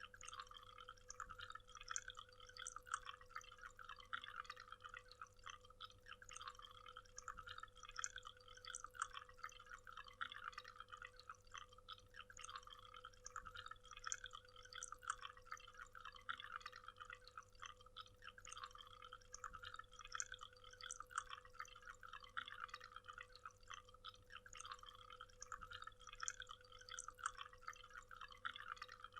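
Quiet waterfall ambience: falling water splashing and dripping in a constant patter of small droplets, with a faint steady hum underneath.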